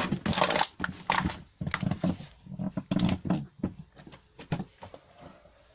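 Irregular wooden knocks and clatters from a homemade timber can crusher being handled, loudest at the start and again about three seconds in.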